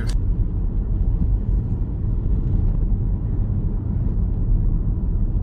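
Steady low rumble of a Toyota car's engine and tyres heard from inside the cabin while driving along at speed.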